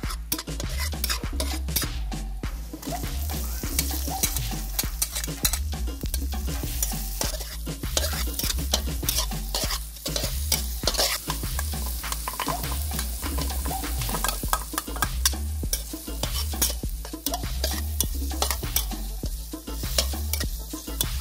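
A metal spatula scrapes and taps against an aluminium wok as garlic, onions and sausage slices sizzle in hot oil. A steady low rumble runs underneath.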